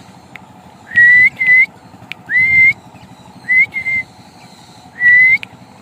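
A person whistling a recall call to a pet lovebird: short clear whistles that slide up and then hold, some in pairs, repeated about every second or so.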